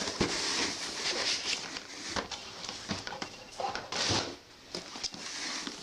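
Cardboard box and packaging rustling and scraping as a keyboard is slid out of its box and handled, with a few soft knocks.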